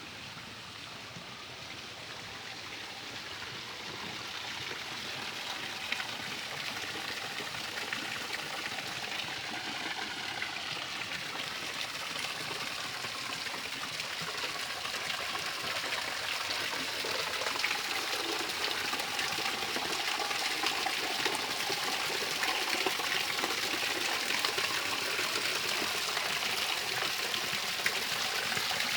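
Running water of a stream, an even rushing that grows steadily louder.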